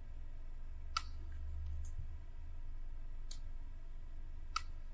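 Three faint computer clicks spread across a few seconds, from the mouse and keys used to select and delete shapes in a drawing program, over a low steady hum.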